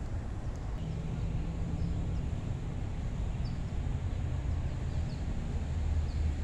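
Outdoor ambience: a steady low engine hum from a distant vehicle, with a few faint, short, high bird chirps.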